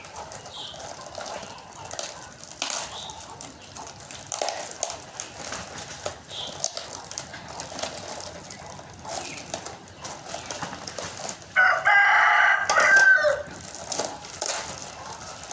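A rooster crows once, loud and about two seconds long, near the end. Faint scattered clicks and rustles sound under the rest.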